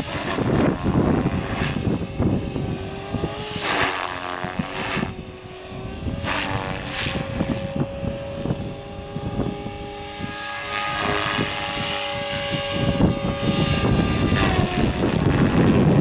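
Align T-Rex 500 electric RC helicopter flying aerobatics, its rotor and motor whine rising and falling in pitch as it manoeuvres. Wind rumbles on the microphone, strongest at the start and near the end.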